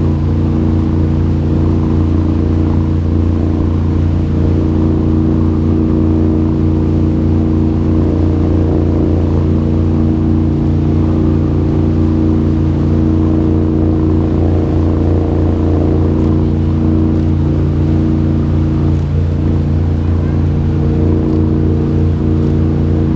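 Tour boat's engine running steadily at a constant pitch, a loud even drone heard on board, with a wash of water noise.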